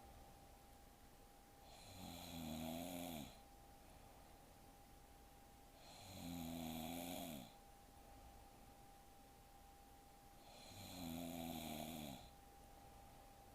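A young woman snoring in her sleep: three snores about four and a half seconds apart, each a low buzzing rasp lasting about a second and a half. A faint steady high tone runs underneath.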